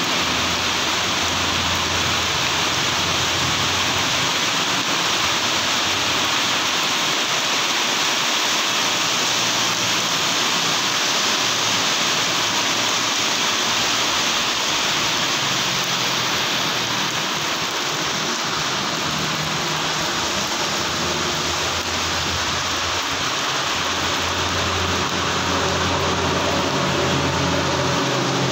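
Heavy rain pouring onto a wet road and paving: a steady, dense hiss. Vehicles pass on the waterlogged road now and then, adding a low engine hum and tyre swish at the start, about midway and near the end.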